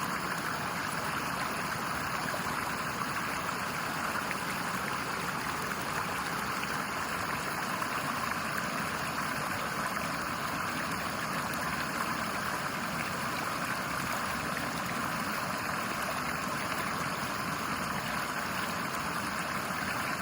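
Steady flowing water of a stream, an even continuous rush with no breaks.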